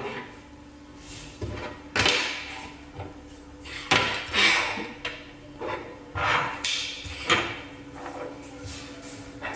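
Parts of a manual meat grinder being handled and set down: a series of separate knocks and scraping clatters over a faint steady hum.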